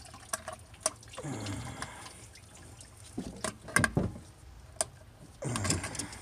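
Engine coolant draining from the radiator's drain petcock into a bucket, trickling and splashing, with several sharp clicks and knocks along the way.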